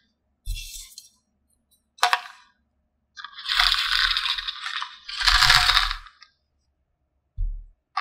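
Small hard plastic pieces clattering and rattling: a sharp click about two seconds in, two longer rattles around the middle, and soft knocks near the start and end.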